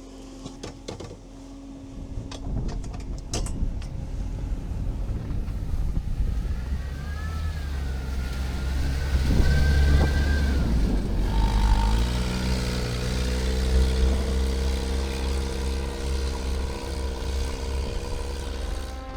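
All-terrain vehicle's engine pulling away under load, building into a heavy low rumble, then settling to a steady drone about twelve seconds in. A few clicks in the first seconds and a brief wavering whine halfway through.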